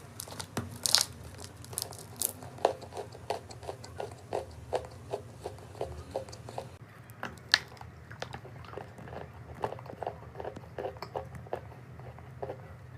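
Chalk being bitten and chewed close to the microphone: a dense, irregular run of crisp crunches and snaps, several a second, with a few louder bites.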